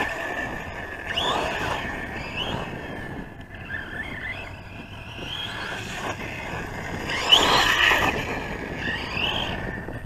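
Brushless electric motor of a Losi Lasernut U4 radio-controlled truck whining up in short throttle bursts, about five times, as it drives over dirt. The loudest burst comes a little past the middle.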